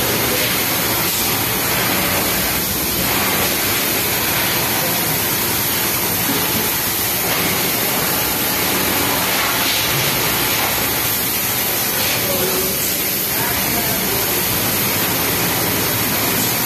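Steady, even din of a garment factory sewing floor, with many industrial sewing machines running at once.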